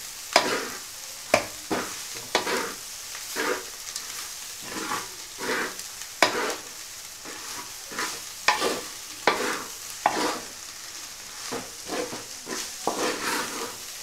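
Spatula scraping and tossing shredded chicken and grated coconut around a large metal pot. The strokes come unevenly, about once or twice a second, over a steady frying sizzle.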